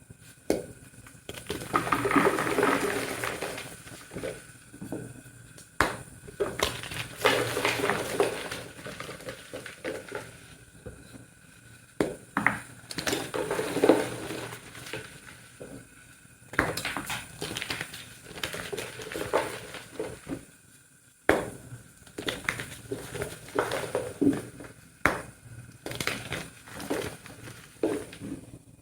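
Blocks of pink-dyed gym chalk being crushed: crunchy, crumbling bouts a few seconds long, with sharp snaps in between and short pauses.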